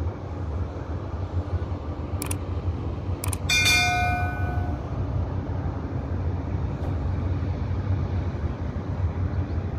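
Subscribe-button sound effect: two mouse clicks about a second apart, then a bell chime that rings for about a second, over a steady low rumble.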